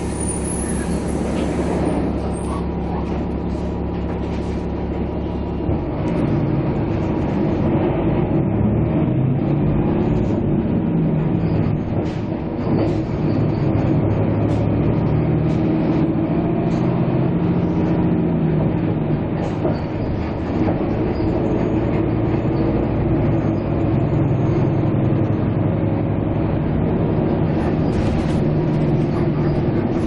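A vehicle running: a steady engine hum, which about six seconds in gives way to a louder, rougher rumble that continues.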